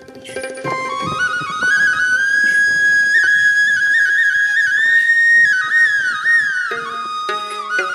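Instrumental background music: a single ornamented melody climbs to a long high note that wavers, then falls away, with low held accompaniment notes coming back near the end.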